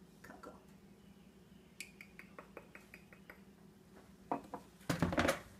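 Small kitchen utensils clinking and tapping around a mixing bowl: a quick run of light ticks, about five a second, in the middle, then a couple of louder knocks near the end.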